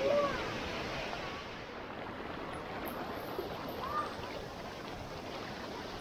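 Steady rush of a waterfall pouring into its pool, with faint voices heard briefly near the start and about four seconds in.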